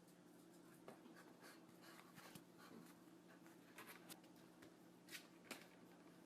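Faint scratching and rustling with scattered light clicks over a low steady hum.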